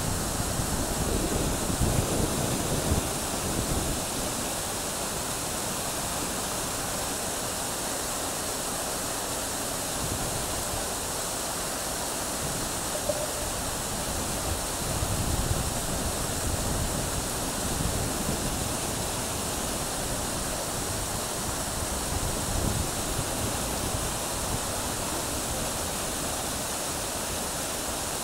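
Revson Fountain's water jets splashing steadily into the pool, a continuous rush of falling water. Low rumbles swell under it a few times.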